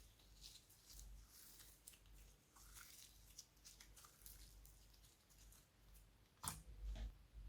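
Slime being squished and stretched by hand, making faint sticky crackles and clicks, with a louder pop about six and a half seconds in.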